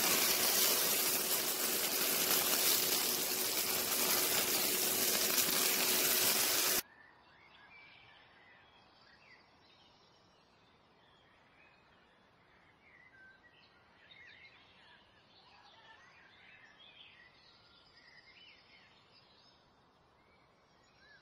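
Chicken breasts frying in hot oil in a nonstick pan, with a loud, even sizzle that cuts off suddenly about seven seconds in. Only faint, scattered high chirps remain after that.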